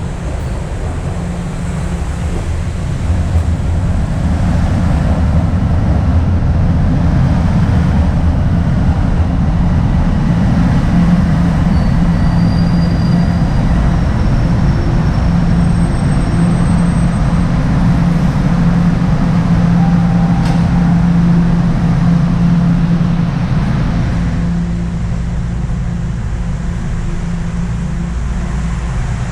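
Toronto subway train running alongside the platform, wheels and traction motors making a loud low hum that builds over the first few seconds, then quietening near the end as the train slows to a stop.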